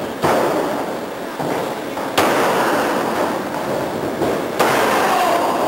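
Heavy slams of wrestlers' bodies and feet on a wrestling ring's mat, about four in five seconds, the loudest about two seconds in, each ringing on through the hall.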